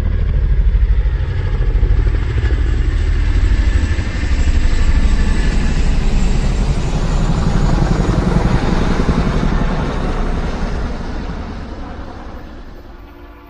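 A motor vehicle's engine running loud and steady with a low, rapid pulse, then fading away over the last three seconds or so.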